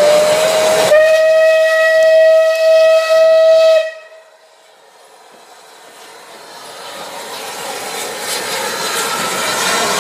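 Steam whistle of SR 'Battle of Britain' class 4-6-2 locomotive no. 34053 'Sir Keith Park': one long steady note that swells about a second in and cuts off suddenly about four seconds in. After it, the hiss and rumble of the locomotive and its train running in, growing louder as it comes close.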